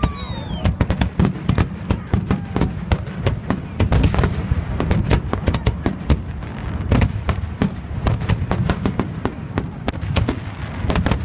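Fireworks display: aerial shells bursting in rapid, overlapping bangs and crackles, several reports a second over a continuous low rumble. A short falling whistle sounds near the start.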